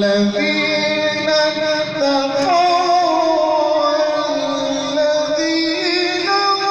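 A male Quran reciter chanting in a melodic style, drawing out long held notes that waver and step from pitch to pitch.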